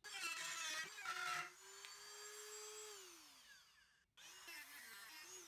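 Dremel rotary tool with a cutting bit cutting into wood, its pitch wavering under load; then it runs free with a steady whine and winds down as it is switched off about three seconds in. Near the end it is cutting again, its pitch wavering.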